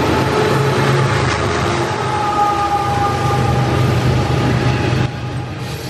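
Mid-train distributed-power diesel locomotive on a loaded covered hopper freight train passing close by: a steady low engine hum over the rumble of wheels on rail, with a thin high-pitched steady tone rising above it for about a second and a half midway. The sound drops off abruptly about five seconds in.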